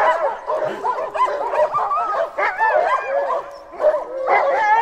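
A pack of sled dogs, huskies, yipping, whining and howling all at once in a constant chorus of overlapping calls that slide up and down in pitch.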